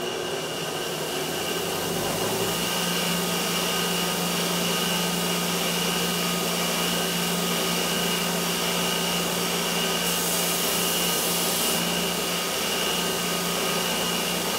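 Grinder on a DoAll bandsaw's blade welder running steadily, grinding the ends of a bandsaw blade flush. It has a steady hum and a high whine, with a brief louder hiss about ten seconds in.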